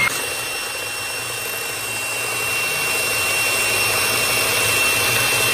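Oster electric hand mixer running at a steady speed with a constant high whine, its beaters whipping egg whites and sugar in a glass bowl toward stiff peaks.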